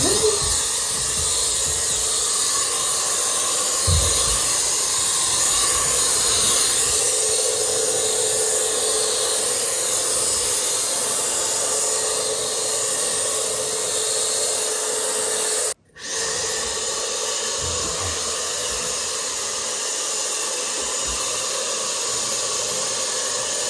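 Jellyfish handheld pet dryer running, blowing air: a constant rushing hiss with a steady motor whine under it, breaking off for a moment about two-thirds of the way through.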